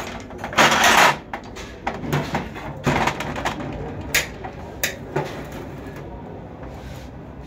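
Metal hand tools and engine parts clattering and clinking on a workbench: a sharp knock at the start, a loud rattling clatter about half a second in, then a few scattered sharp clinks.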